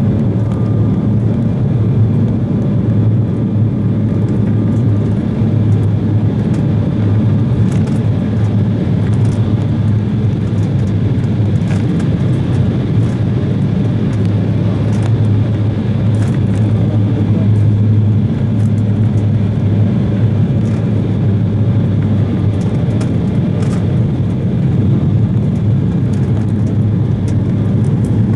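Steady cabin noise of an Embraer 170 jet airliner in flight, heard from inside the cabin: the constant drone of its GE CF34 turbofan engines and airflow, with a strong low hum. Faint scattered ticks and rattles sound over it.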